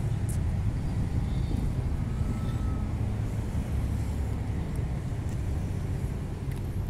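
Steady low rumble of city traffic, with a few faint, brief taps.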